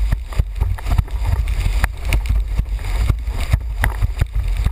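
Wind rumbling heavily on the microphone of a board-mounted camera as a windsurf board planes over choppy water, with the hiss of spray and frequent irregular slaps of the hull hitting the chop.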